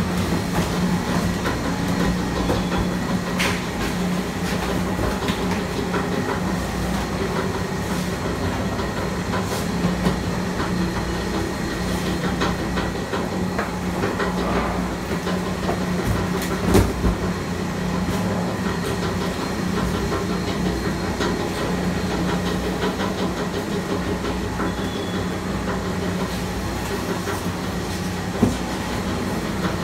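Sani-Tech 20 HP auger compactor running, its large screw auger turning through cardboard: a steady machine drone with a constant hum, a continual crackle of cardboard being caught and crushed, and a few sharper knocks, the loudest about two-thirds of the way through.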